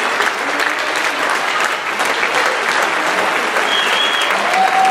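Theatre audience applauding steadily, a dense, even clapping from a full house.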